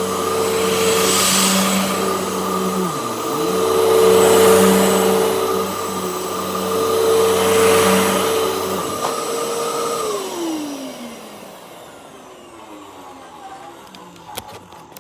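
Hoover WindTunnel Max Multi-Cyclonic upright vacuum running, its motor whine steady and the rush of air swelling about every three seconds. About ten seconds in it is switched off and the whine falls away as the motor spins down.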